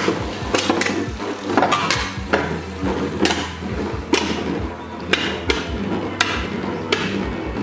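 Infinity Nado metal-ringed spinning tops clashing as they spin in a plastic battle stadium: repeated sharp metallic clacks, a few each second, over a low steady hum.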